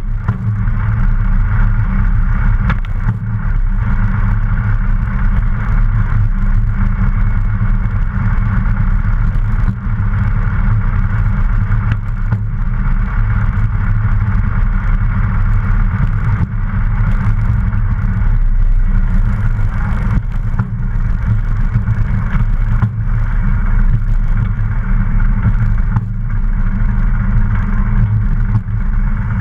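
Luscombe light aircraft's piston engine and propeller running steadily at low power as the plane taxis along the runway. The sound stays even, with no climb in revs.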